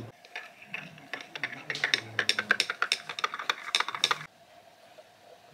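Metal spoon stirring coffee in a glass, clinking rapidly against the sides, stopping suddenly a little after four seconds in.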